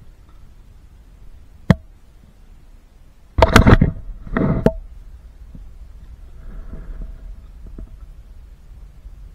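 A hooked catfish thrashing as it is lifted over the side of an aluminium boat, knocking and rattling against the metal hull in two loud bursts about three and a half seconds in, with a brief ring from the hull. A single sharp click comes a little earlier.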